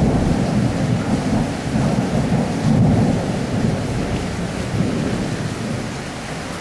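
Thunder rumbling through a rainstorm over the steady hiss of rain, the rumble dying away toward the end.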